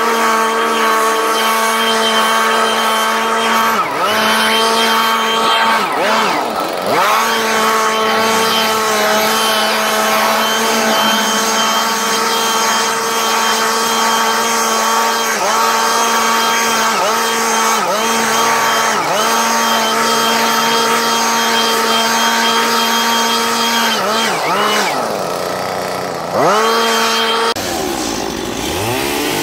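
Stihl MS170 two-stroke chainsaw running at high revs, its pitch dipping briefly and recovering several times. Near the end it drops back to a lower, wavering speed.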